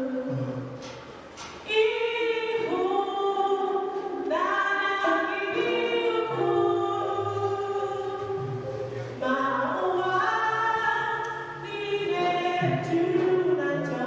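A small group of women singing a gospel song together into microphones, holding notes in harmony. There is a short lull about a second in.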